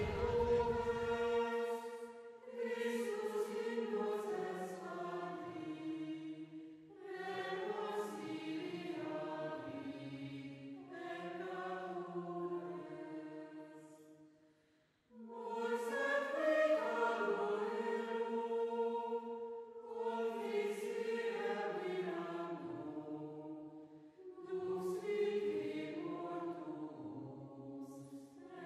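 Choir singing a slow, chant-like piece in phrases a few seconds long, with brief breaks between them. A low rumble dies away about a second in.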